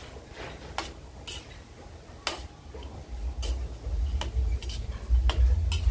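Metal spatula clinking and scraping against a wok while stirring pork rinds frying in hot oil: sharp, irregular ticks about once or twice a second. A low rumble rises about three seconds in.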